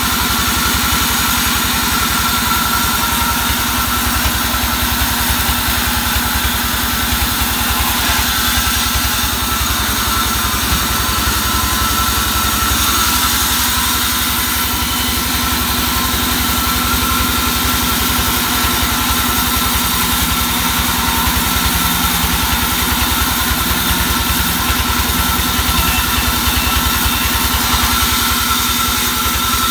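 Vertical band sawmill running steadily while a log is fed through its blade and sawn into slabs: a constant machine drone with a thin high whine and a fast low throb.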